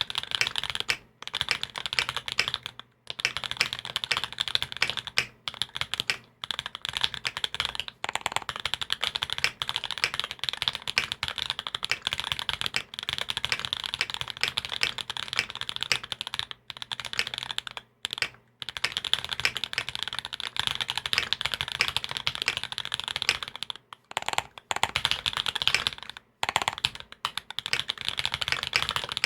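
Fast, continuous typing on a custom Salamander mechanical keyboard with SP Star Meteor White switches, a carbon fibre plate and GMK Taro keycaps. The keystrokes run in long streams, broken by a brief pause every few seconds.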